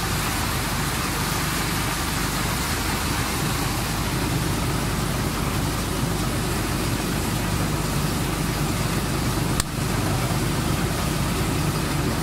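An engine running steadily: a low hum under a constant hiss, with a single sharp click about nine and a half seconds in.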